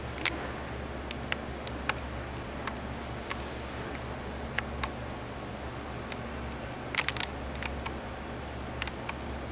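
Scattered sharp clicks and clacks, with a quick cluster of several about seven seconds in, over a steady hiss and low hum.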